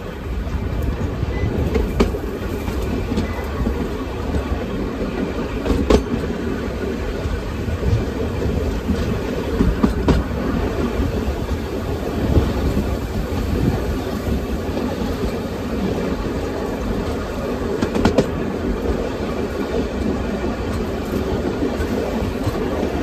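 Passenger coach wheels running along the track, a steady rumble with a few sharp clacks over rail joints, heard from the open verandah of a moving train.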